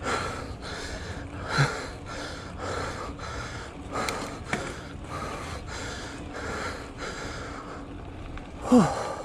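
A person breathing hard and rhythmically, about two breaths a second, winded from climbing a steep hill with a mountain bike. Near the end comes one short voiced exhale that falls in pitch.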